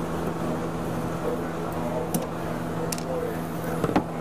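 Steady low hum throughout, with a few light clicks and a sharper knock near the end, from a screwdriver and small screws being handled and set down.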